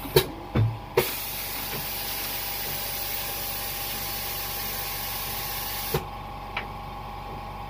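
Hot air rework station blowing onto the phone's logic board: a steady hiss of air that switches on abruptly about a second in and cuts off about five seconds later, after a few light knocks at the start.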